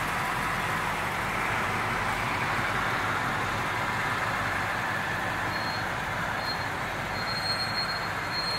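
Mercedes-Benz 450SEL 6.9's 6.9-litre V8 idling steadily as the car creeps forward at walking pace, with no revving.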